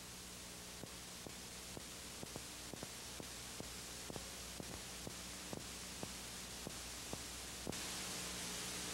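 Steady hiss and low hum of old analog videotape, with faint irregular clicks about twice a second. The hiss turns brighter at a cut near the end.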